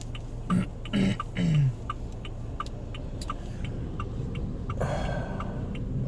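Car turn-signal indicator ticking steadily, about three clicks a second, over the low hum of the engine and road noise inside the cabin. A few short throat sounds from the driver come near the start, and a brief hiss about five seconds in.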